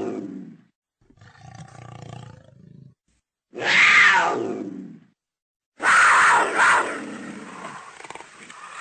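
Leopard calling: the tail of one roar, a quieter low growl, then a loud roar about a second and a half long that fades away, and near the end a longer roar that swells twice. The calls are cut apart by moments of dead silence.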